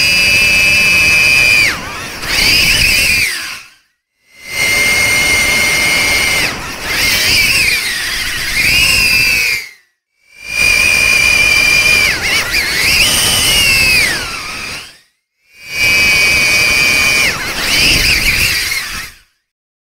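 Darwin FPV CineAPE 25 cinewhoop's brushless motors and 63 mm ducted props whining at a high pitch, in four separate takes of a few seconds each. In each take the pitch holds steady, then dips sharply and swoops back up as the throttle changes.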